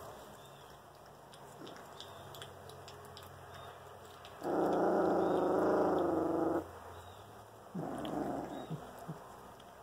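Puppies play-growling while wrestling: one sustained growl of about two seconds near the middle, then a shorter, quieter growl about a second later.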